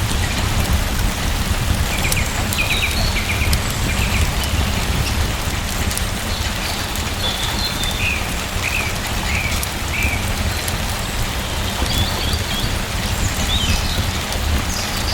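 Steady rain falling, a dense even patter over a deep low rumble, with short high bird chirps in small runs a few seconds apart.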